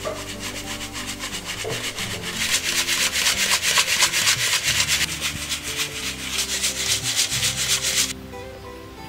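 Flour being sifted through a metal-mesh drum sieve shaken rapidly by hand. It makes a rhythmic rasping hiss that builds over the first couple of seconds and stops abruptly about a second before the end.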